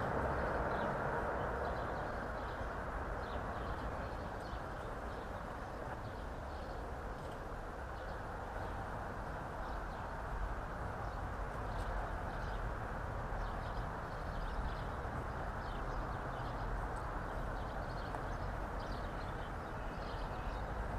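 Garden outdoor ambience: a steady, muffled rush with a low rumble, dotted with brief high chirps, as of small birds.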